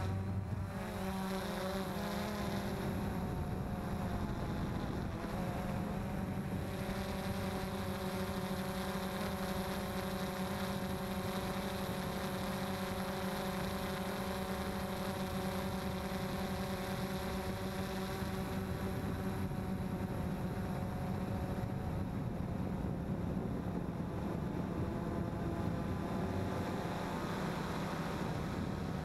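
XK X380 quadcopter's motors and propellers humming steadily in flight, heard close from its onboard camera. The pitch wavers briefly in the first couple of seconds, then holds even.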